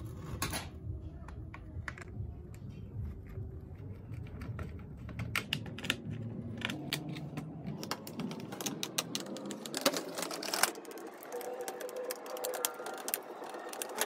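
Hand screwdriver undoing the small screws in the plastic underside of a toy RC car: a run of light clicks and taps from the screwdriver, the plastic shell and the tools being handled.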